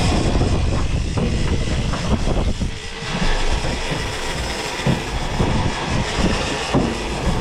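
Steady rumbling noise aboard a fishing boat at sea, loud and continuous with irregular low buffeting.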